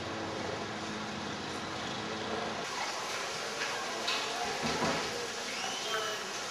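Steady background ambience with faint, indistinct voices of people nearby; the background changes abruptly about two and a half seconds in.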